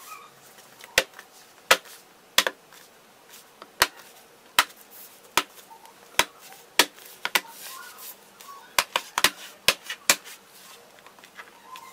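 Clips of a Dell Inspiron 14 5493 laptop's base cover snapping into place as the cover is pressed down along its edges: a series of sharp clicks, one or two a second, coming in quicker succession near the end.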